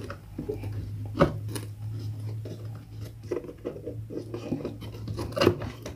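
Hands refitting the back cover of an old active speaker cabinet: scraping and small clicks of the panel and cable being handled, with a louder knock about a second in and another near the end, over a steady low hum.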